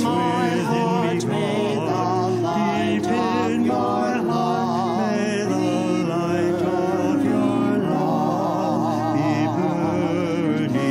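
A small group of singers sings a slow hymn with vibrato, accompanied by grand piano.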